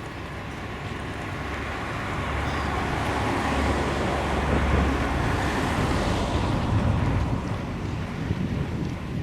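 A road vehicle driving past: engine rumble and tyre noise build over several seconds, peak in the middle, and fade toward the end.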